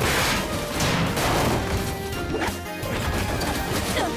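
Cartoon sound effects of cars crashing and smashing, with heavy impacts at the start and again about a second in, over dramatic action music.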